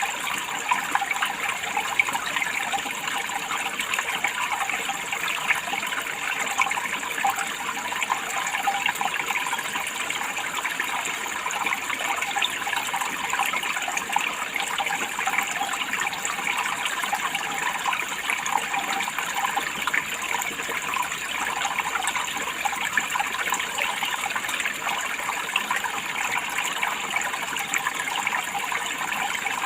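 Running water trickling and splashing steadily, an even rushing sound with many small quick splashes throughout.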